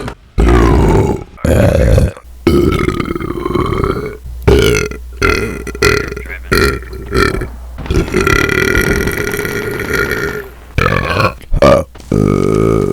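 A person burping loudly, over and over: about a dozen belches in a row. Most are short, a few are drawn out, and one long belch near the end of the run lasts close to three seconds.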